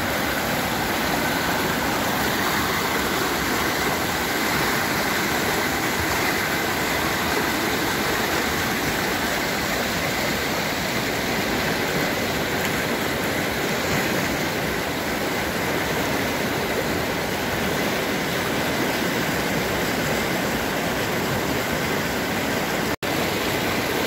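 Fast mountain river rushing over rocks in rapids: a steady, loud rush of whitewater. It breaks off for an instant near the end.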